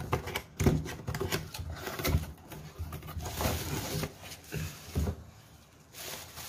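A cardboard headset box being opened by hand: irregular knocks and scrapes of cardboard, with rustling of the plastic-wrapped headset as it is lifted out.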